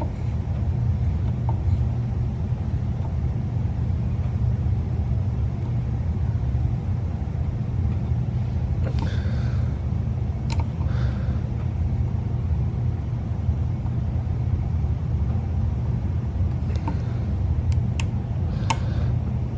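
2017 Subaru WRX's turbocharged flat-four engine idling with a steady low rumble. A few light clicks or taps sound about halfway through and again near the end.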